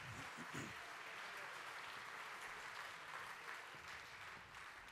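Faint audience applause, an even patter of clapping that slowly dies away.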